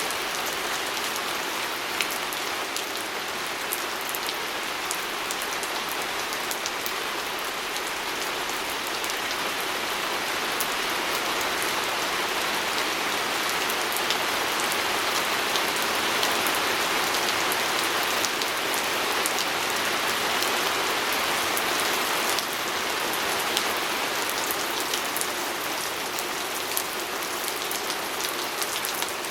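Steady rain pattering on a window, a dense hiss of drops with scattered sharper ticks, growing a little heavier for a stretch in the middle.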